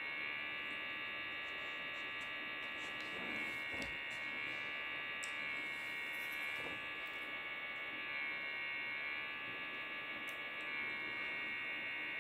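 Steady electrical hum with a high, many-toned whine: room tone with no other activity.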